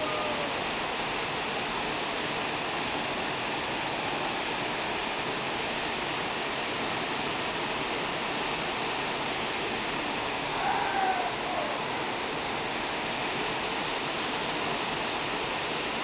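Waterfall pouring into a rock pool: a steady, unbroken rush of falling water. A brief call rises faintly over it about eleven seconds in.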